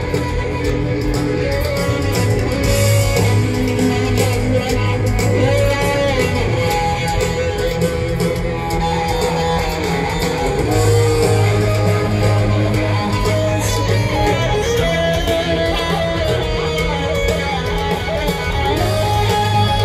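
Live rock band playing loud amplified music with electric guitars, bass and drums, heard through a stadium PA from within the crowd.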